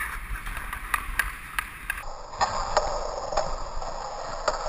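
Ice hockey skates scraping over rink ice and a stick clicking on the puck: a string of sharp, irregular clicks over a steady hiss that grows louder about two seconds in, picked up by a GoPro on the skater.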